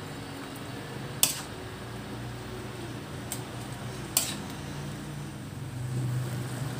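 Metal spoon clinking against an aluminium pan while stirring a stew. There are two sharp clinks, about a second in and about four seconds in, and a fainter one between them, over a steady low hum.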